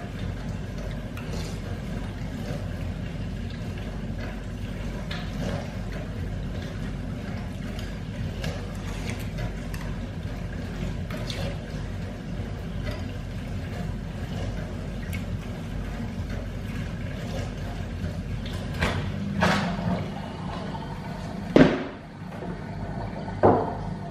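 A spoon clinks and scrapes in a ceramic cereal bowl as someone eats, faint against a steady low rumble. Near the end come a few louder knocks and thuds.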